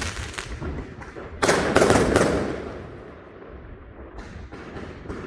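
Aerial fireworks going off: a sudden loud bang about a second and a half in, quickly followed by two more, then an echoing rumble that fades away. A couple of faint pops come near the end.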